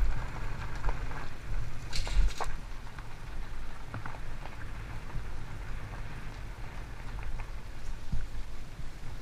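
Mountain bike tyres rolling over gravel and dirt, with scattered crunching and crackling of loose stones, a low rumble of jolts and wind on the bike-mounted camera, and a sharper clatter over a bump about two seconds in.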